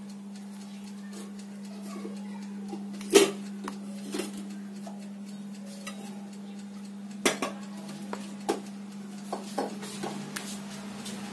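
A plastic spoon knocking against a mixing bowl and foil-lined moulds as thick chocolate batter is spooned into them. Several sharp clicks come, the loudest about three seconds in and a quick run of them near the end, over a steady low hum.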